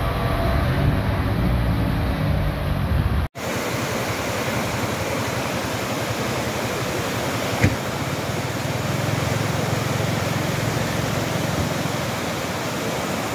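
Muddy floodwater rushing steadily down a concrete-lined wadi channel swollen by storm rain. For the first few seconds, before a sudden cut, a car and a scooter run along a flooded, rain-soaked street. A single brief knock comes about halfway through.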